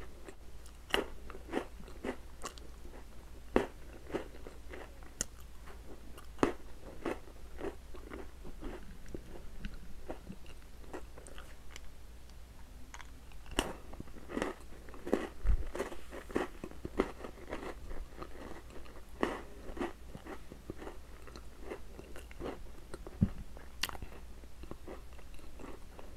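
A person chewing and crunching chocolate snacks with an open mouth, with irregular crisp crunches and mouth clicks throughout.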